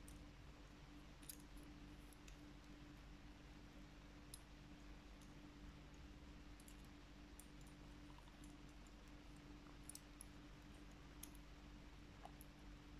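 Faint, irregular light metal clicks from the parts of a Regal pin-tumbler lock cylinder being handled and fitted back together with a flat steel tool, over a low steady hum.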